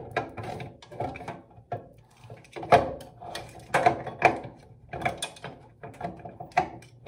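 Irregular clicking, knocking and rattling of things being handled in a bathroom wall cabinet.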